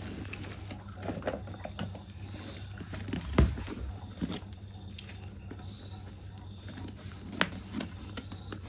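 Scattered light taps and clicks of objects being handled, over a steady low hum, with one louder knock about three and a half seconds in.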